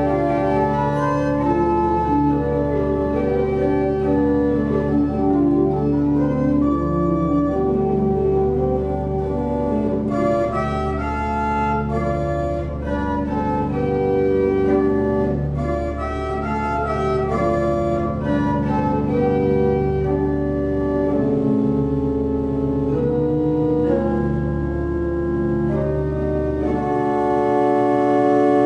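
Pipe organ playing sustained chords, with moving upper voices over a steady low pedal bass. It swells to a fuller, slightly louder chord near the end.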